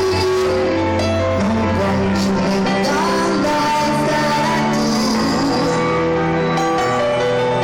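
Rock music with singing, a continuous loud band performance with held melodic notes.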